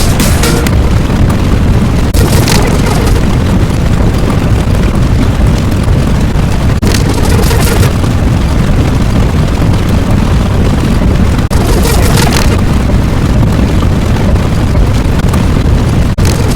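Loud, continuous rumbling noise, heaviest in the low end, broken by a brief cut about every four and a half seconds; several of the cuts are followed by a short, brighter hiss.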